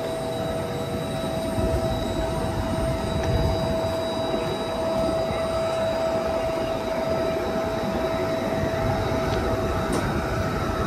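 Trenitalia Intercity passenger coaches rolling past on the station track: a steady rumble of wheels on rail with a constant whine held over it.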